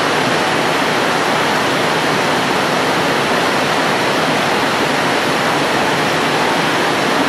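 Steady, even rush of water, loud and unchanging throughout.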